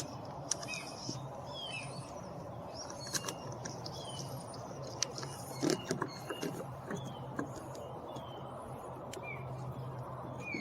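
Birds chirping in short, falling calls about every second, over a steady low hum, with a few sharp clicks and knocks from door trim and parts being handled.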